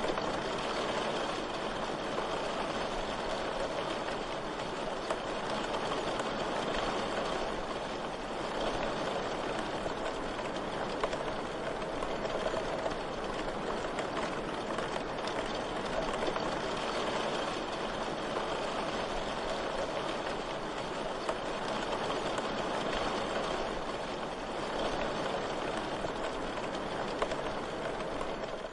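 Steady rain falling, with faint, irregular clicks of keyboard typing in the background.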